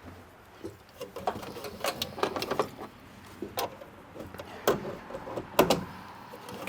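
Irregular clicks and knocks of plastic trim and wiring being handled, with a few louder knocks about three quarters of the way through.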